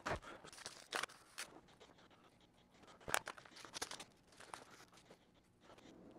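Faint, scattered small clicks and rustles of hands handling seeds and rockwool seed-starter cubes in plastic trays, with sharper clicks about a second in and about three seconds in.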